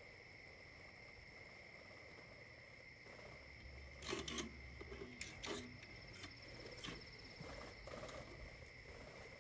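Light plastic clicks and knocks as a toy spider and the door of a plastic toy shipping container are handled, loudest about four seconds in, over a faint steady high-pitched whine.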